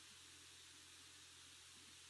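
Near silence: faint steady hiss with a low electrical hum.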